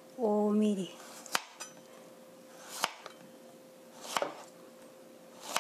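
Kitchen knife slicing a zucchini into rounds, the blade knocking sharply on the cutting board four times, about once every second and a half.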